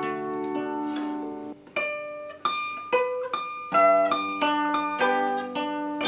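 Concert zither played solo: single plucked melody notes ringing over lower held notes, with a short break in the playing about one and a half seconds in.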